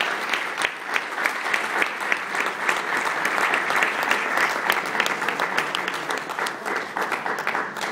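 Audience applauding steadily, a dense run of hand claps.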